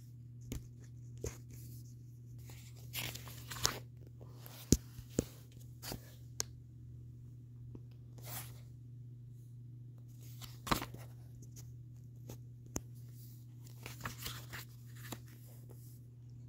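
Pages of a paperback graphic novel rustling and being flipped, with scattered clicks and knocks from handling, over a steady low hum.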